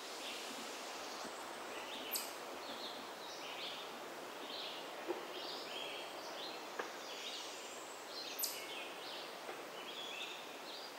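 Faint outdoor ambience: birds chirping in many short calls over a steady hiss, with a few faint clicks.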